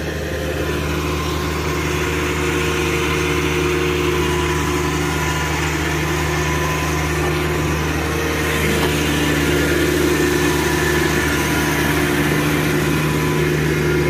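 Rice combine harvester's engine running steadily: a continuous loud drone with a steady low hum.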